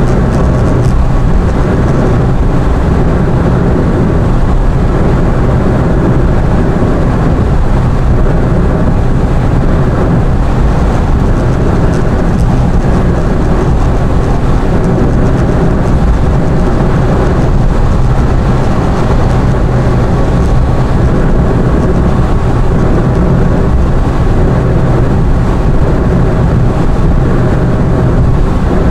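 Car driving along at steady speed: a continuous low rumble of engine and road noise that never lets up.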